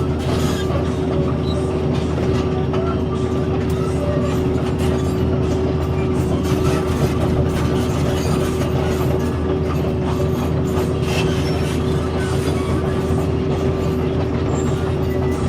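Excavator's diesel engine and hydraulics running steadily with a constant whine, heard from inside the cab, while the machine travels on its tracks, with a stream of small clicks and clanks throughout.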